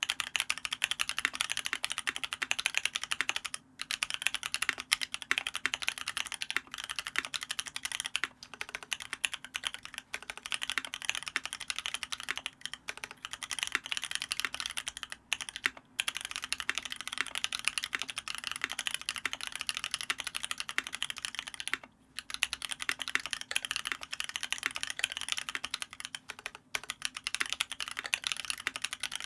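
Continuous fast typing on a Lyn Special Whale custom mechanical keyboard with lubed Paco switches (cream housing, Halo stem), a brass plate and PBT keycaps. The keystrokes come in dense runs of clacks, broken by a few brief pauses.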